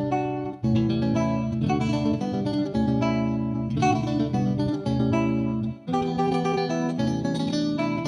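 Background music played on plucked guitar, in phrases of chords and notes, with two brief breaks.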